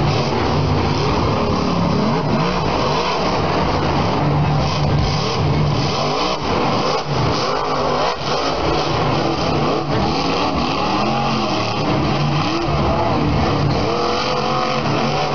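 Monster truck's supercharged V8 engine revving hard and continuously, its pitch rising and falling again and again as the truck drives the dirt course.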